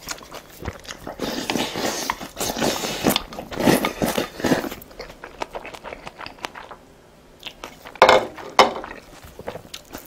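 Close-miked chewing of a mouthful of food, with many small wet clicks and crunches, then two louder short sounds about eight seconds in.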